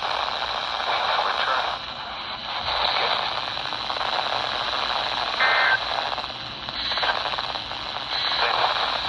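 Hiss and static from a weather radio on a weak, distant NOAA Weather Radio signal. The hiss swells and fades, and a thin high tone runs under it. About five and a half seconds in, a short burst of two alternating tones breaks through, the kind of data burst that carries the end-of-message code after a test.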